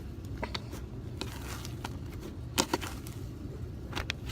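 Fluffy shaving-cream slime being stretched and poked by hand, giving scattered small sticky clicks and crackles, one sharper about two and a half seconds in and two more near the end, over a steady low hum.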